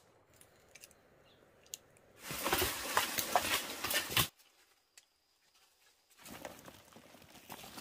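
Rustling and crackling of leaves and undergrowth, in two bursts. The first lasts about two seconds and cuts off abruptly. The second comes near the end.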